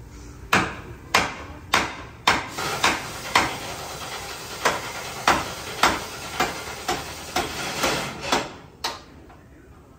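Repeated sharp metal-on-metal blows, about one every half second to second, each with a short ring: a hammer striking the steel fifth-wheel mounting of a truck tractor. The blows stop about a second before the end.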